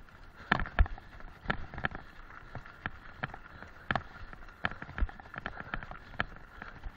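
Bicycle rolling fast over a loose gravel track: irregular knocks and rattles as the wheels hit stones and the frame and camera mount jolt, over a steady crunch of tyres and wind hiss. The hardest jolts come about a second in and again about five seconds in.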